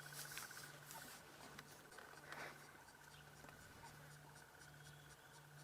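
Near silence: a faint steady low hum under a faint, evenly pulsing high tone, with a few soft clicks.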